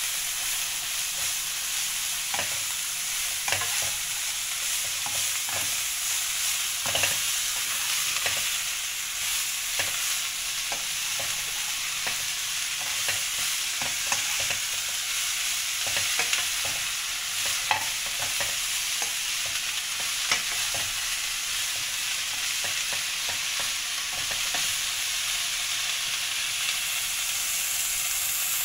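Bean sprouts and shredded carrot stir-frying in a wok: a steady sizzle, with irregular clicks and scrapes of the spatula tossing them.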